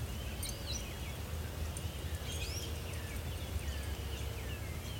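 Songbirds chirping and whistling in many short, quick notes of sliding pitch, over a steady low rumble.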